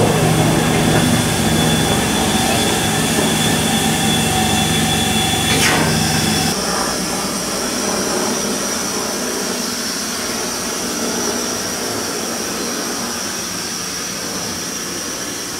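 LMS Royal Scot class 4-6-0 steam locomotive No. 46100 hissing steadily with steam up. A low hum under the hiss stops suddenly about six and a half seconds in, and a thin high whine carries on after it.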